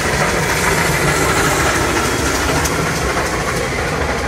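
Heritage train hauled by 59 class steam locomotive 5917 passing behind trees: a steady rumble of the locomotive and its carriages on the track.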